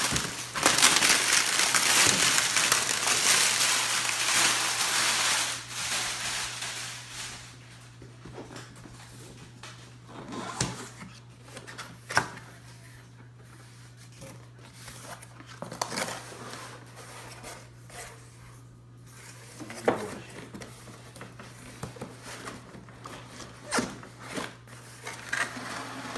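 Packaging being handled during an unboxing: several seconds of rustling and crinkling, then scattered knocks and clicks as the box and its contents are moved. A steady low hum sits underneath.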